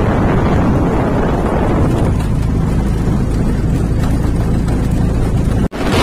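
Auto-rickshaw engine running at road speed, a steady low rumble mixed with road and wind noise. It drops out for an instant near the end.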